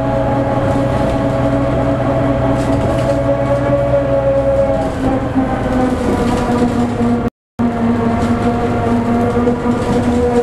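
Inside a moving Gardner-engined MCW Metrobus double-decker: a loud gear whine of several steady tones over the engine rumble, shifting in pitch about five seconds in, the sound of a worn planet gear in the hub reduction. The sound cuts out for a moment a little after seven seconds.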